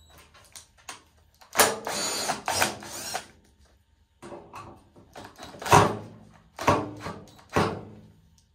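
A cordless drill-driver backing screws out of a chrome hinge on a steel vending-machine door: one run of about a second and a half, then three short, sharp bursts.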